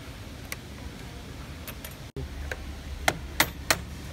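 Light metallic clicks and taps from handling multipoint lock hardware on an aluminium window frame, with three sharp clicks in quick succession in the second half.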